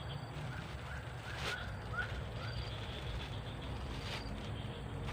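Outdoor ambience: a steady low rumble with a series of short chirping animal calls, and a single sharp click about a second and a half in.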